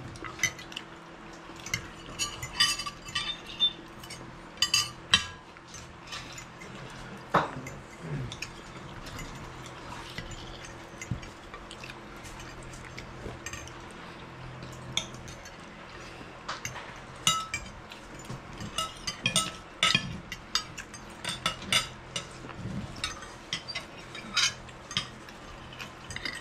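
Cutlery clinking and scraping on dinner plates as people eat: many short, irregular clinks scattered throughout, over a faint steady hum.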